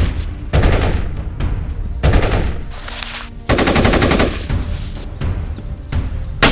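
Rapid automatic gunfire in several bursts, each about a second long, with a single sharp shot near the end.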